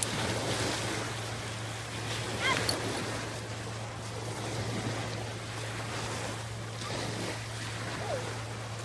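Small waves breaking and washing onto a pebble beach, a steady rush of surf, with a brief high-pitched call about two and a half seconds in.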